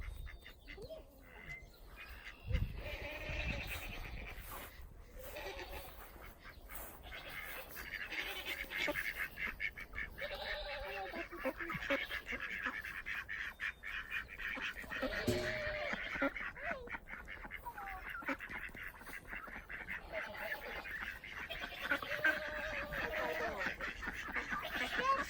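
Domestic ducks and geese calling in a string of quacks and honks, over a steady high hiss.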